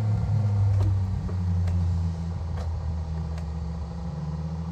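Hydraulic log splitter running with a steady low hum that drops in pitch and gets quieter about one to two seconds in, as the splitter takes up load. A few faint sharp ticks sound over it.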